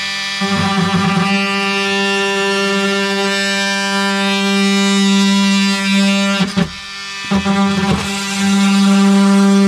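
Oscillating multi-tool cutting a hole, a loud steady buzz that stops briefly about six and a half seconds in, then starts again.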